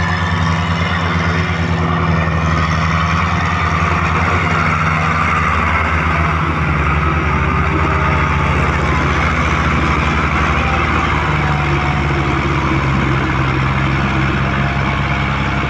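Farm tractor diesel engines running hard under heavy load, hauling an overloaded sugarcane trolley, so heavy that the tractor's front wheels lift off the ground. The engine note shifts partway through.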